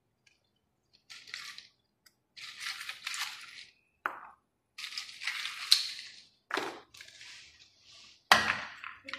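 Ice cubes clinking and clattering in short bursts as they are taken from a bowl and dropped into a plastic blender jar of milkshake mix. A louder knock comes near the end.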